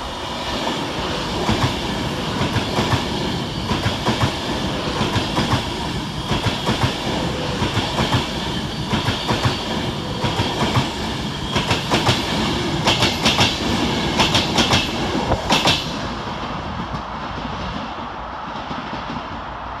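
Class 390 Pendolino electric train passing through the station without stopping, its wheels clattering rhythmically over rail joints. The sound dies away about sixteen seconds in as the last carriages pass.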